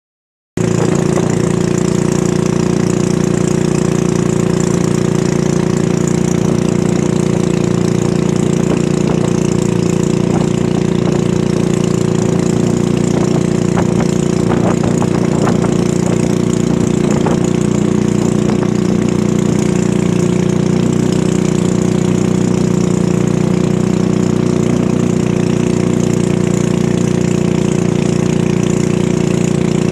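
Narrow wooden river boat's engine running steadily at cruising speed, with water rushing along the hull.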